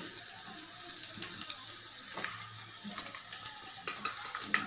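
Onions and mashed potato frying in a metal pan with a low, steady sizzle while a spoon scrapes chilli powder and turmeric out of a glass bowl into it. A few sharp taps of the spoon come near the end.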